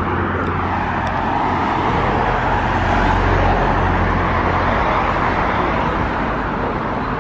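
Steady road traffic noise: a continuous rush of passing cars with a low hum underneath.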